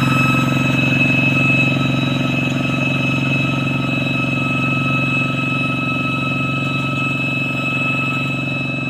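A walk-behind hand tractor's diesel engine runs steadily under load in a wet rice paddy, with a steady high-pitched whine over it.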